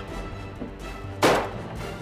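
A single shotgun shot at a thrown clay target about a second in, a sharp report with a short fading tail, over background music.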